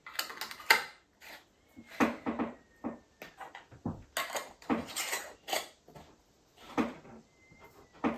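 Glass pickle jars being handled on a kitchen counter: irregular clinks and knocks coming in short clusters.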